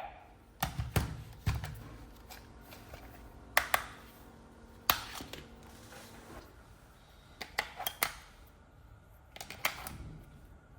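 Scattered light clicks and knocks of a plastic toy being handled, some coming in quick pairs and small clusters.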